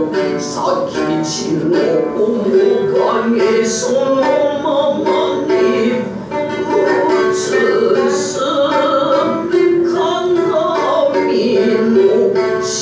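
Ningyo joruri accompaniment: a shamisen plucked with sharp strokes under a chanter's sung narration.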